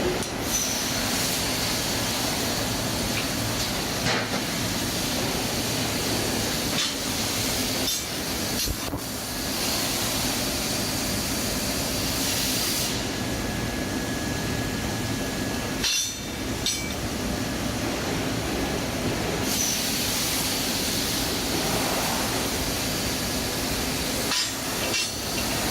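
CNC plasma cutting machine at work: a steady hiss with a low hum underneath, changing abruptly several times as the shots cut.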